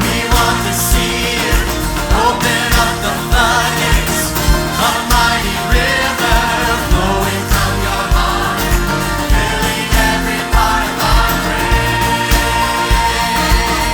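Choir singing a worship song with band and orchestra accompaniment and a steady drum beat.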